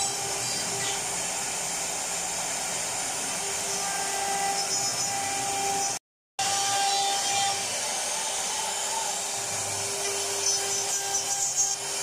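CNC wood router's spindle running with a steady whine while its bit cuts a pattern into a wooden board. The sound cuts out for a moment about halfway through, and near the end it turns rougher and uneven.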